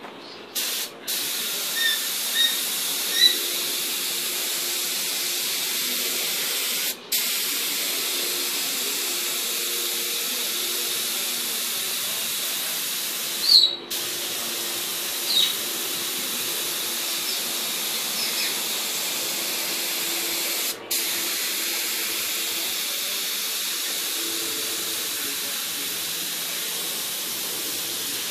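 Compressed-air spray gun spraying paint: a steady hiss that stops for a moment a few times as the trigger is released.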